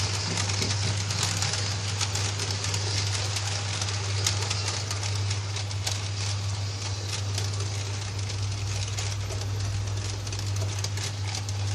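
Model railway train running into a station on the layout, its wheels ticking over rail joints, with many small clicks, over a steady low electrical hum.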